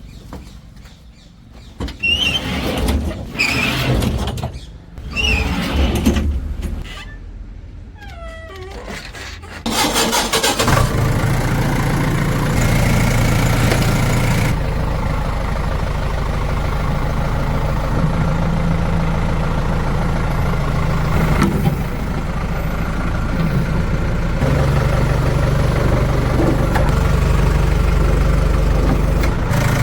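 About ten seconds in, a heavy diesel engine of a tractor or backhoe loader is heard running steadily at a low, even pitch, with slight rises and falls in level. It is preceded by a stretch of scattered short sounds, some of them with sliding pitch.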